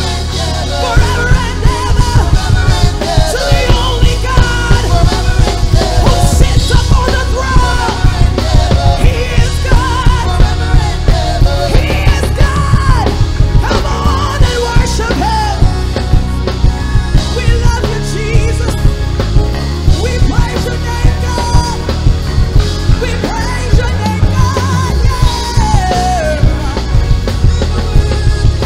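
Live gospel band playing: a steady drum beat, bass, organ and keyboards, with a lead singer's voice sliding between notes over the top.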